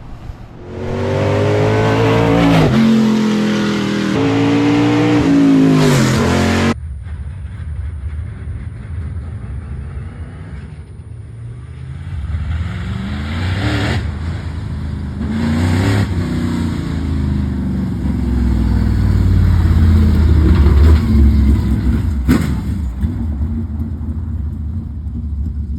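Dirt late model race car's V8 engine revving hard under acceleration, its pitch climbing twice in the first few seconds; this is a test run to check a newly fitted belt-driven fuel pump. About seven seconds in the sound cuts off abruptly, and the engine is then heard revving up again, with a loud low rumble near the end.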